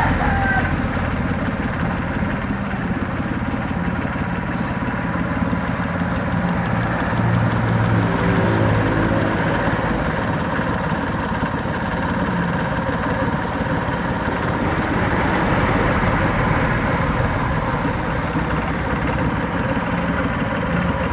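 Suzuki F6A EFi three-cylinder engine idling steadily with a fast, even ticking, which the owner puts down to a fuel injector.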